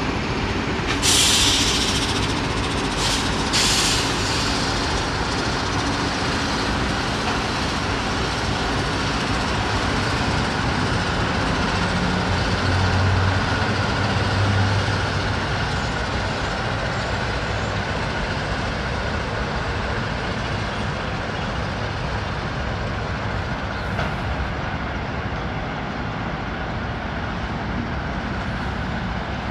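Two Pacific National NR-class diesel-electric locomotives running light across a steel truss rail bridge, their engines droning loudest about halfway through as they pass. Two short hisses come a few seconds in.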